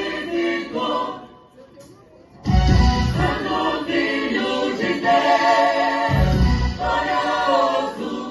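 Gospel worship song with a choir or group singing over a band, breaking off briefly about a second in and coming back in full at about two and a half seconds.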